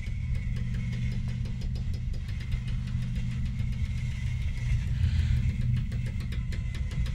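Steady, engine-like low mechanical drone with a fast, even ticking pulse and a faint high whine: the ambient machinery hum of a film soundtrack. A brief hiss swells and fades about five seconds in.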